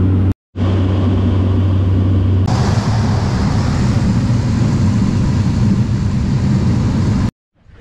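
Cabin noise of a Cessna 208 Caravan single-engine turboprop: a loud, steady low drone in flight. After a cut about two and a half seconds in, it turns to a rougher rumble with more hiss as the plane rolls along a dirt airstrip.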